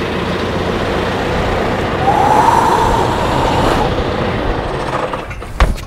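John Deere utility tractor's diesel engine running while its three-point hitch is lowered, with a whine that rises and falls about two seconds in. A couple of heavy knocks come near the end.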